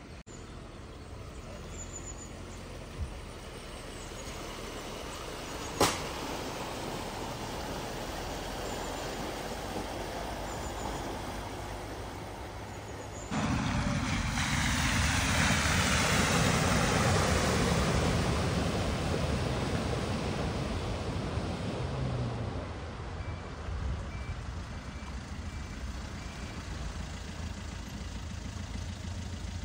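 A vehicle driving through floodwater: a steady engine and road noise, then a sudden, louder rush of engine and splashing water about 13 seconds in that slowly fades.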